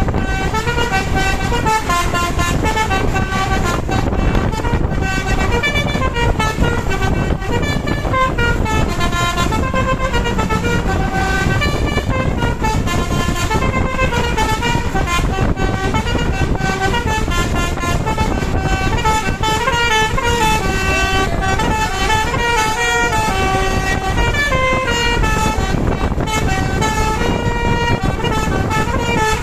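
Basuri telolet bus horn playing a running melody of quick stepped notes, over a steady low rumble.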